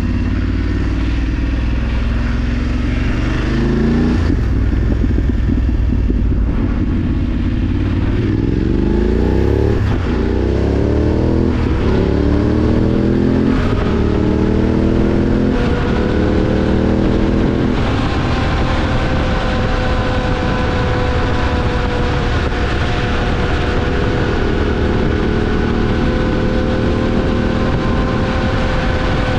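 A BMW F 850 GS Adventure's parallel-twin engine under way, rising in pitch and dropping back several times as the bike accelerates through the gears. About two-thirds of the way in it settles to a steady pitch at cruising speed, with a constant rush of wind and road noise underneath.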